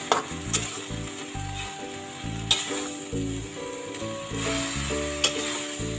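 Noodles and vegetables sizzling as they are stir-fried in a wok, with the metal spatula scraping and sharply knocking against the pan about four times. Background music plays throughout.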